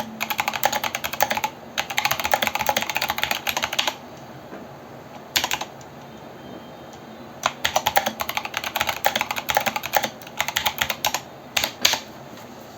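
Hexgears Gemini Dusk mechanical keyboard with Kailh Box Brown tactile switches and MT3 keycaps being typed on in quick runs of keystrokes. The clicking stops for about three seconds in the middle, broken by one short cluster of strokes. A few last keystrokes land near the end.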